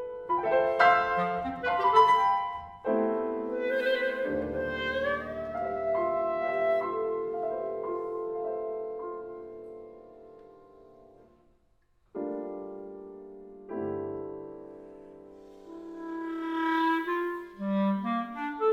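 Clarinet and piano playing a contemporary classical piece: quick flurries of notes, then long held chords that fade almost to silence partway through. Two new chords ring out and decay, and quick notes build again near the end.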